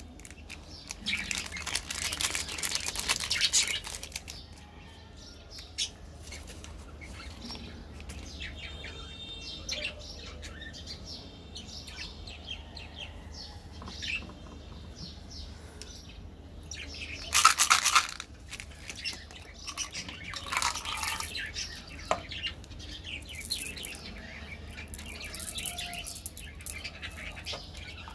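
Plastic candy wrappers crinkling and rustling as they are handled, in several loud bursts of a second or two with quieter rustling in between, over a faint low hum.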